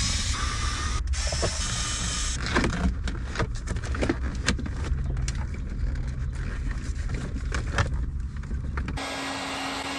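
Irregular clicks and knocks of a car's center console trim and fasteners being worked loose, over a steady low rumble. About nine seconds in, this gives way abruptly to a steady hiss with a low hum.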